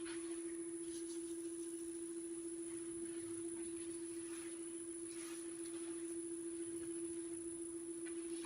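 Wood lathe running at slow speed with a steady, even motor hum, while a folded paper towel wet with CA glue is wiped onto the spinning wood-and-resin bottle stopper, heard as a few faint brief rubbing sounds. A sharp click right at the end.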